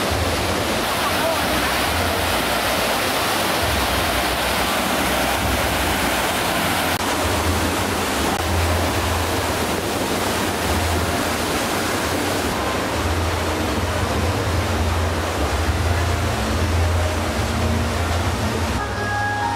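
Rushing water: a loud, steady, even rush with a low rumble underneath.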